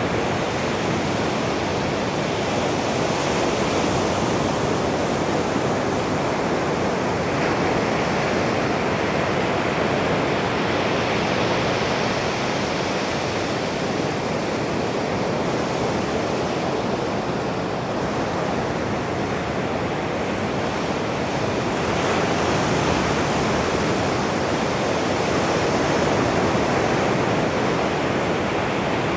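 Ocean surf breaking and washing up a sandy beach: a steady rush of water that swells and eases slightly every few seconds.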